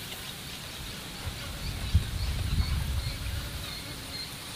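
Swamp insects calling: a thin, high chirping that comes and goes in short dashes over a steady hiss. About a second in, a low rumble swells for about two seconds, with a single knock near the two-second mark.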